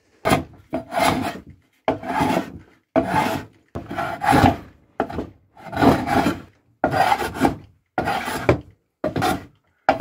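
Hand plane being pushed along a wooden board, about ten rasping strokes, roughly one a second, each cutting a shaving.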